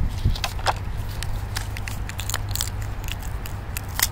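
Handling noise from gloved hands moving a plastic toy truck and a rocket firework: scattered small clicks, crackles and rustles over a steady low rumble.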